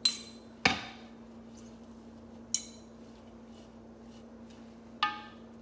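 A metal salad utensil clinking against a glazed ceramic bowl while tossing dressed salad greens: four sharp, ringing clinks, two close together at the start, one in the middle and one near the end, over a faint steady hum.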